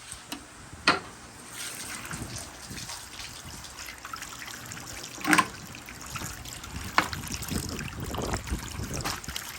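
Many marbles rolling and rattling down a marble run in a continuous trickling patter, with sharp clacks about a second in, a louder one about five seconds in, and another about seven seconds in.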